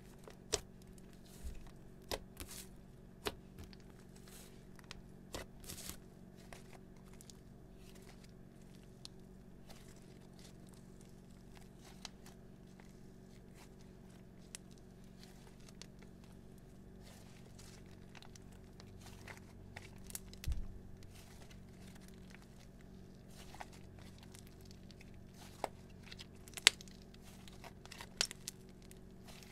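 Slime being kneaded, folded and stretched by hand, giving scattered sharp clicks and pops. A faint steady hum runs underneath.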